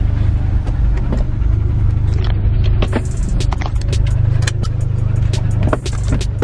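Car running with a steady low rumble, with many sharp, irregular clicks and ticks over it.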